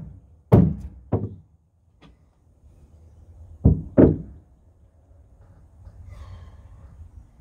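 Wooden knocks and thunks as pieces of wood are picked up and set down against a plywood boat hull: two about half a second apart near the start, two more close together about four seconds in, then faint rustling.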